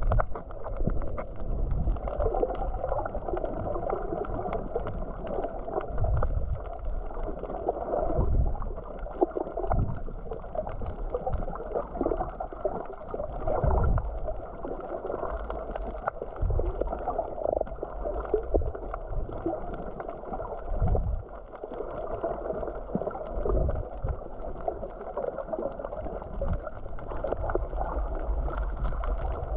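Muffled water gurgling and sloshing, with irregular low thumps.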